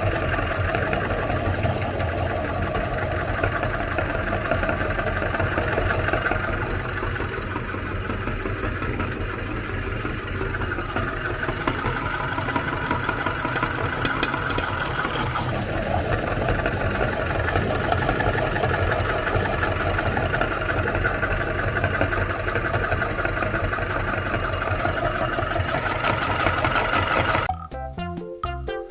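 Electric meat grinder motor running steadily as it grinds Oreo cookies, its note wavering slightly. Near the end it cuts off suddenly and music with a steady beat takes over.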